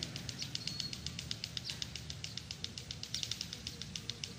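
A rapid, even train of short high chirps, about ten a second, from a small creature calling near the tree, over a steady low outdoor rumble.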